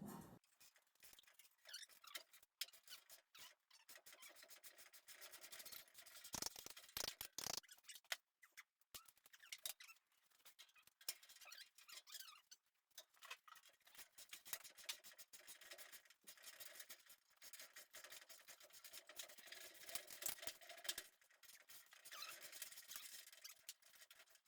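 Faint, irregular clicking and scraping of hand tools working on old metal body parts and fasteners, with scratchy rubbing sounds.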